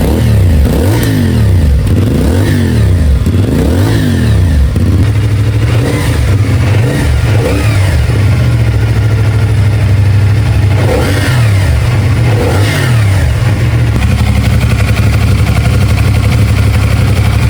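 CFMoto 450SR parallel-twin motorcycle engine, just rebuilt, being revved in quick blips: three in the first five seconds and two more later. It then settles to a steady idle near the end.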